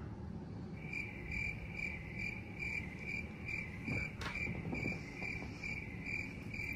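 A cricket chirping steadily, about three chirps a second, starting just under a second in. A single faint click a little past four seconds.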